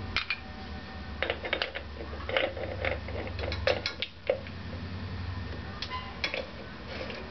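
Irregular metal clicks and clinks as a Harley-Davidson compensator sprocket assembly is worked by hand onto the engine shaft, over a steady low hum.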